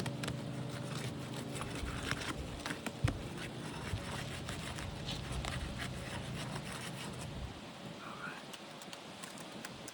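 A pry bar scraping and clicking under asphalt shingles as their sealant bond is broken loose, where the seal is still holding firmly. A steady low hum runs underneath and fades out about seven and a half seconds in.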